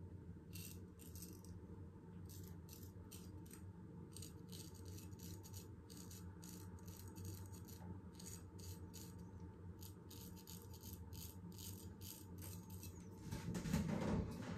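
Trevor Woolfson Damascus steel straight razor scraping a day's stubble off the cheek: short, faint rasping strokes, about two or three a second, in repeated passes. A louder, fuller noise comes near the end.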